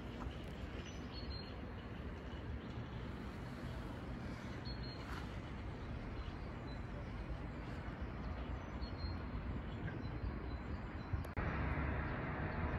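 Outdoor town ambience: a steady low rumble of distant traffic, with a few faint high chirps. About eleven seconds in it cuts abruptly to a louder ambience with a steady hum.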